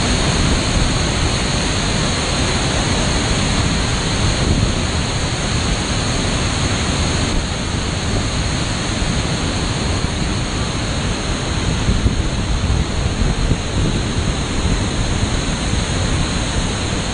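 Ban Gioc waterfalls: a steady, loud rush of water falling close by and crashing into the pool below.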